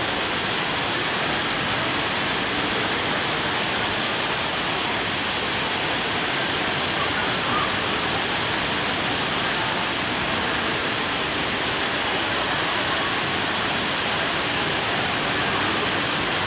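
Indoor waterfall: a steady, even rush of falling water.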